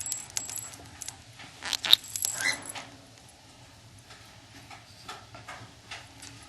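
Light clicks and rattles from a pet bird moving about its cage and perch, busiest in the first three seconds and sparser after, with a short high chirp about two and a half seconds in.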